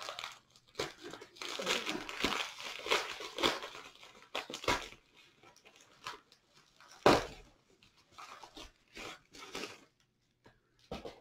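Paper and plastic packing material crinkling and tearing as it is pulled off a shipped comic by hand, in uneven bursts, with one sharp, loudest rustle about seven seconds in.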